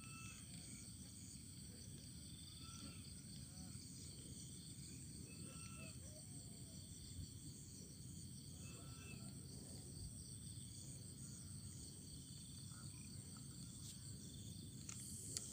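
Faint outdoor ambience: a steady high-pitched insect drone throughout, with a few short chirps scattered through and a low background hum.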